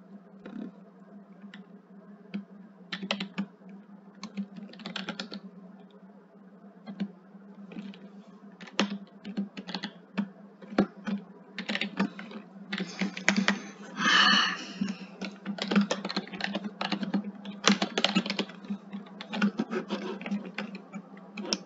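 Typing on a computer keyboard: irregular runs of keystroke clicks as a line of code is entered, over a steady low hum. A brief hiss comes about fourteen seconds in.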